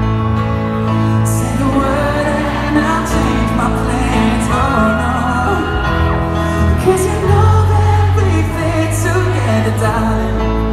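Live pop ballad in an arena: sustained piano chords under a sung melody.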